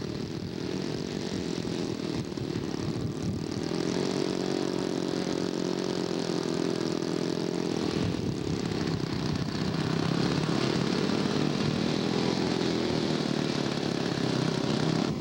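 Engine of a radio-controlled scale model airplane running steadily with a slightly wavering pitch. It grows a little louder partway through.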